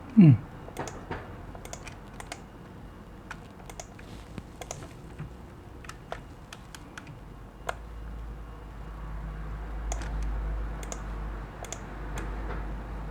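Computer keyboard typing: irregular, scattered keystrokes with pauses between them. A brief falling vocal sound right at the start.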